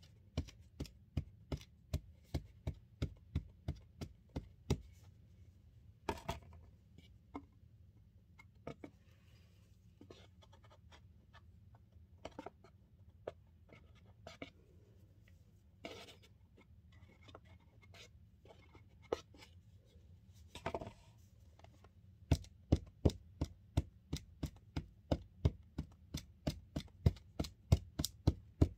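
A spatula tamping cornstarch down hard inside its cardboard box: repeated sharp taps, about two a second at first, then only scattered taps, then louder and quicker, about three a second, near the end.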